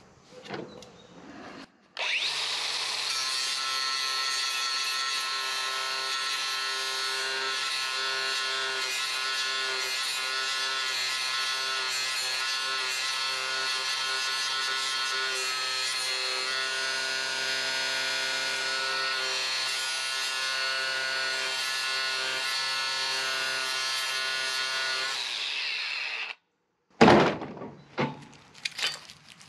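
DeWalt 60-volt cordless angle grinder grinding down the steel pin that holds a steel end fitting in an aluminum shoring beam. The grinding starts suddenly about two seconds in and goes on at an even level for over twenty seconds, then stops. A few loud clanks follow near the end.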